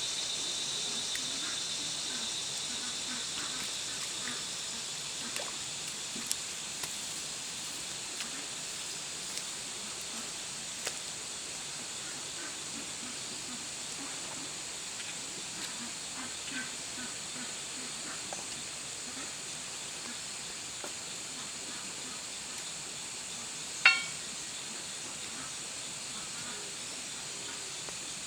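Outdoor field ambience: a steady high-pitched insect drone, with scattered faint clicks and one sharp click about 24 seconds in.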